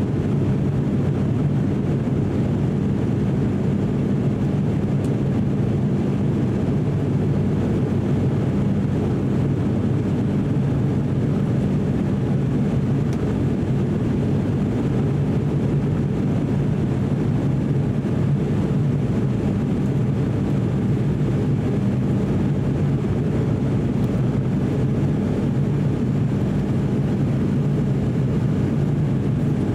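Steady drone of an ATR 42-600's turboprop engines and propellers as heard inside the cabin beside the propeller, with an even low hum under a broad rushing noise, on descent.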